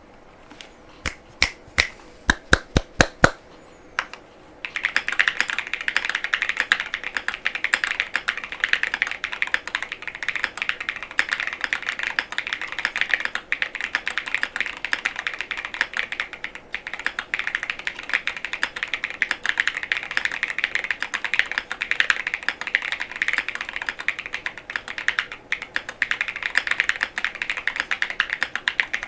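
Mechanical keyboard (Monsgeek M5 with Gateron Baby Kangaroo tactile switches and PBT SDA keycaps) typed on at speed. First come about eight separate, loud key presses, then after a short pause a fast, continuous stream of keystrokes.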